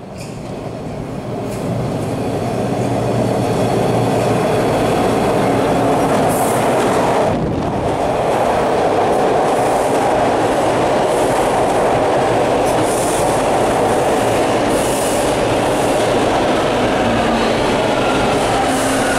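TTC T-1 subway train coming in over the bridge and running past close alongside, steel wheels on the rails. The noise builds over the first few seconds as it approaches, then stays loud and steady as the cars go by.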